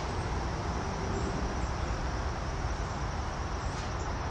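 Wind blowing over the phone's microphone outdoors: a low, fluctuating rumble under a steady hiss.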